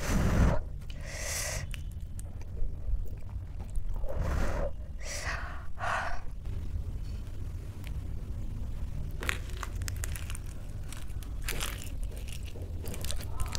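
Close-miked hand-eating of soft, very hot mashed rice: a few short breathy puffs in the first six seconds, then chewing with fine wet mouth clicks.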